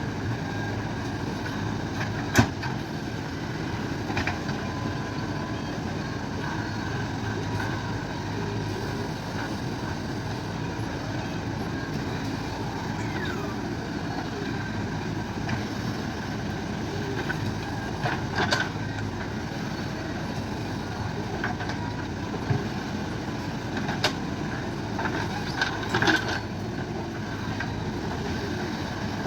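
JCB backhoe loader's diesel engine running steadily while working, with a few sharp clanks now and then.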